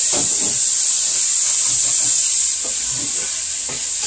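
Shrimp frying in hot oil in a stovetop pot: a steady loud sizzle that eases off a little about two and a half seconds in.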